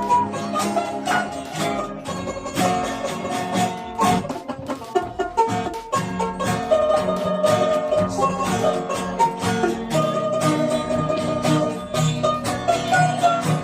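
Background music of quick plucked strings, banjo- or guitar-like, with a busy rhythm.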